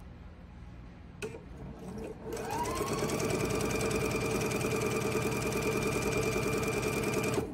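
Electric sewing machine stitching a seam through quilting fabric. There is a click about a second in. The motor spins up with a rising whine a little over two seconds in, runs at a steady speed, then stops just before the end.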